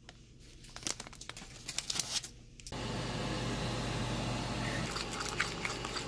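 Close-miked eating sounds: a run of sharp crunches and crinkles. About three seconds in, a steady background hum comes up suddenly, with a few softer clicks over it.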